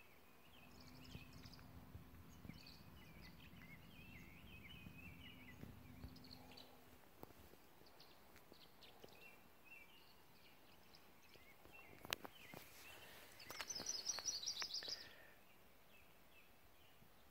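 Faint birdsong with scattered high chirps, and a fast, high trill lasting about a second and a half near the end, the loudest sound. A faint low hum runs through the first half.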